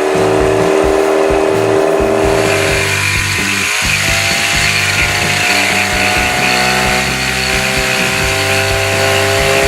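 Boat outboard motor running under way. Its pitch rises about three seconds in as the throttle opens, then holds steady.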